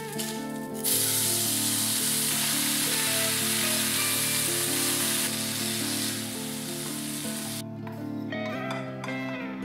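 Green beans sizzling in a hot frying pan as they are stir-fried with chopsticks. The sizzle starts suddenly about a second in and cuts off abruptly near the end, over soft background music.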